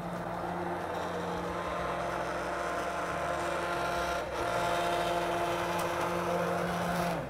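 Hand-held immersion blender running steadily in a pot of soup, a constant motor whine over a churning wash, cutting off suddenly at the very end.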